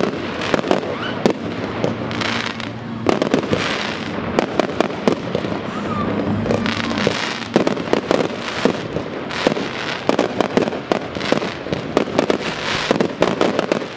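Fireworks display: aerial shells bursting and crackling in a dense, unbroken run of bangs and crackles, several a second.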